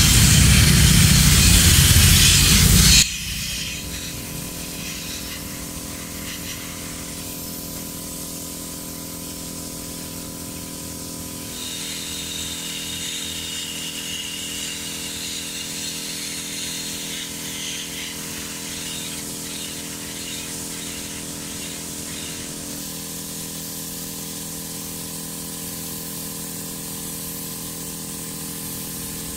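Air spray gun hissing loudly as it sprays clear coat onto a motorcycle cylinder head, cutting off suddenly about three seconds in. A much quieter steady hum with several held tones carries on after it.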